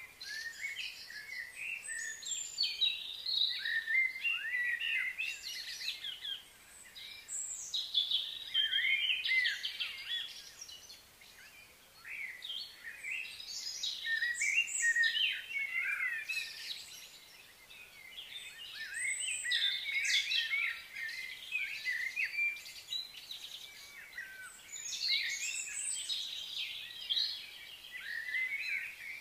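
Songbirds chirping and singing, many short overlapping calls and trills in waves that swell and ease off every few seconds.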